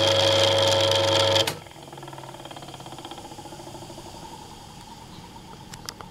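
Three-phase induction motor running on single-phase mains through a run capacitor, turning in reverse with a loud steady hum and whine. About a second and a half in the hum cuts off sharply as the power goes off, and the motor winds down with a faint, slowly falling whir. A couple of faint clicks come near the end.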